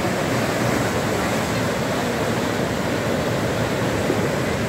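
River in full flood: fast, muddy floodwater rushing and churning in a steady, loud, unbroken rush.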